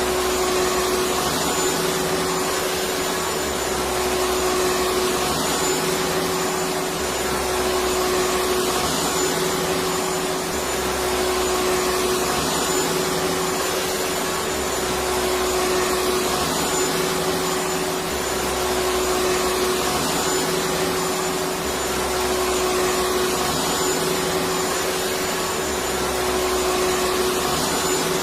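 Electric vacuum cleaner running steadily: an even rushing of air with a constant motor hum and a faint high whine, and a low rumble that swells and fades every couple of seconds.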